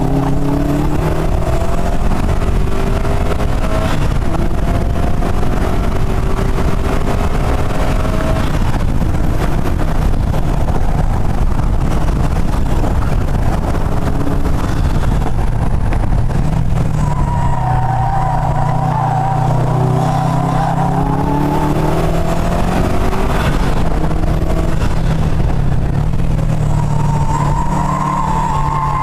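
Subaru WRX STi's turbocharged flat-four under hard acceleration on track, its pitch climbing over the first eight seconds, sinking under the noise mid-way, then pulling again and rising and falling in the second half. A steady rush of wind and tyre noise runs underneath.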